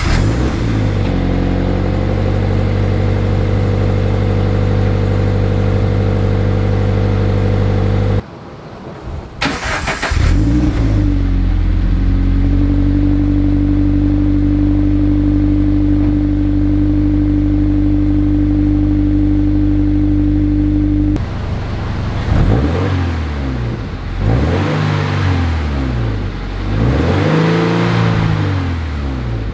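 Subaru BRZ's 2.0-litre flat-four running through a newly fitted HKS Legamax Premier exhaust: it idles steadily, is started again about ten seconds in with a short flare, idles on, then is revved up and down several times near the end. This is the first run after the install, as a check of the new joints for exhaust leaks.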